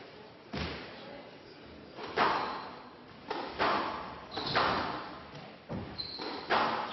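Squash rally: the ball struck by rackets and smacking off the court walls in about six sharp, echoing hits, roughly one a second. Short high squeaks of court shoes come in the second half.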